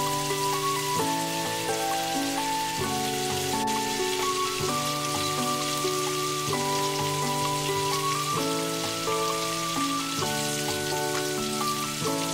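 Shrimp coated in cornstarch and egg yolk deep-frying in hot oil: a steady crackling sizzle. Background music of held notes plays over it.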